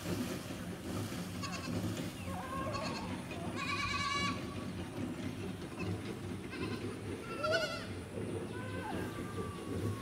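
Goats bleating: a series of short, quavering calls, the loudest about four seconds in, over a steady low rumble.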